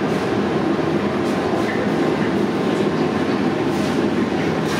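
Steady, loud rumbling background noise with no clear events.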